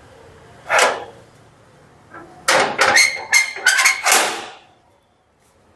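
A door being unlocked and opened: a scuff, then a quick run of sharp metallic clacks and knocks with a brief metallic ring, which stops about four and a half seconds in.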